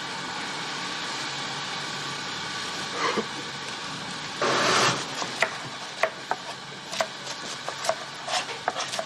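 Knife chopping vegetables on a cutting board: irregular sharp knocks, several a second, starting about halfway through. Just before them comes a short, loud rustle of leafy greens, over a steady background hiss.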